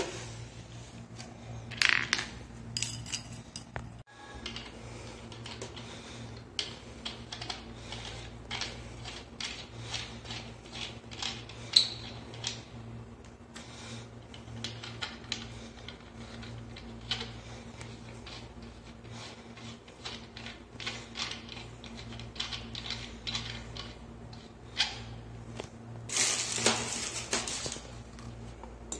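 Brass plumbing fittings and hand tools for a wall mixer tap being handled: light metal clicks and clinks, over a low steady hum. A louder clatter comes about two seconds in and again near the end.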